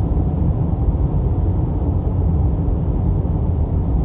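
Car driving at steady speed: an even, low rumble of engine and road noise.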